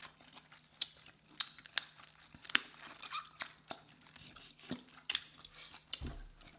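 Close-up eating sounds from a seafood boil: boiled shellfish shells cracking and snapping in sharp, irregular clicks, with chewing in between.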